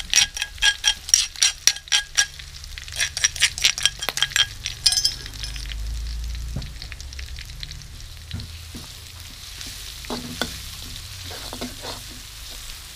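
A metal spoon knocks and scrapes rapidly with ringing clinks as chili is tipped from a bowl into a wok, stopping about five seconds in. After that, garlic and chilies sizzle steadily in hot oil in the wok, with an occasional scrape of the spatula.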